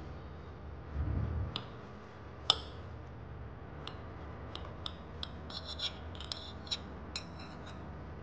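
A knife cutting through a pan-fried broccoli and egg pancake with a crisp browned crust, giving a run of sharp crackling clicks. There is a dull thump about a second in and a single louder click a little later.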